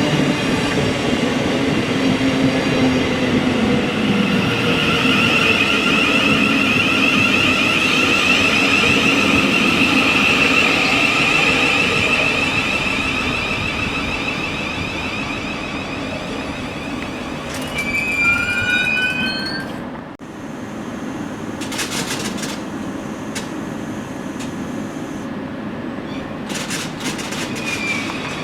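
Train running on the line through the station: steady rumble with a high whine that fades, then near two-thirds of the way through a short whine that rises in steps. The sound then changes abruptly to a quieter rumble with a few clicks.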